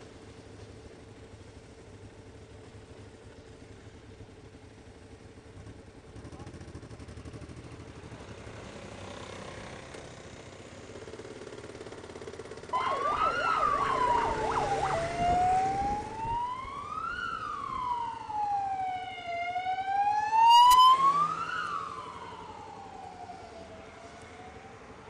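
An emergency-vehicle siren sounds about halfway through. It starts with a fast yelp, then changes to a slow rising-and-falling wail that grows louder and then fades away near the end. Beneath it is the low running noise of motorcycles on the road, and a single sharp knock comes as the siren peaks.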